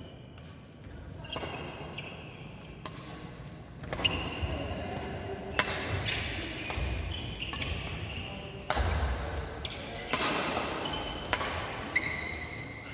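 Badminton rally: irregular sharp racket strikes on the shuttlecock, mixed with short high squeaks of sneakers on the wooden court floor, echoing in a large hall.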